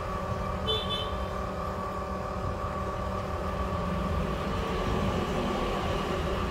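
Steady mechanical hum with several held tones, one high tone standing out, from running machinery such as a fan or motor. A brief high tone sounds about a second in, and the hum swells slightly in level past the middle.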